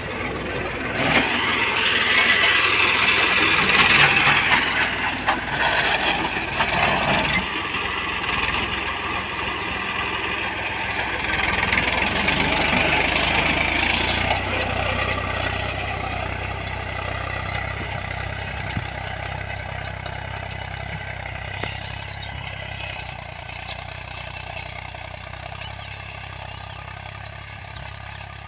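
Sonalika diesel tractor engine running steadily as it pulls a seed drill through tilled soil. It is loudest and noisiest as it passes close, about four seconds in, then fades as it moves away.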